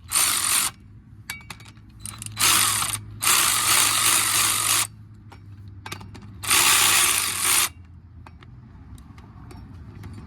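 Bauer 1/2-inch hand ratchet clicking rapidly as it is swung back and forth, spinning loosened lug nuts off a hub. It comes in four spells: one at the start, one about two and a half seconds in, a longer one just after, and one at about six and a half seconds.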